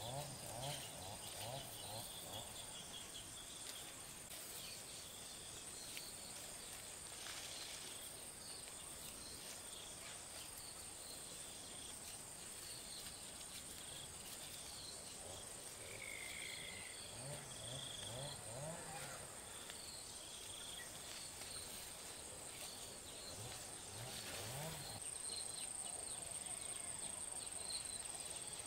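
Steady high-pitched insect trill, as of crickets, with scattered faint chirps over it.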